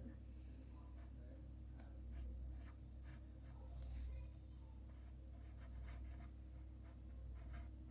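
Faint scratching of handwriting strokes, short irregular scrapes of a writing tool on a surface, over a steady low hum.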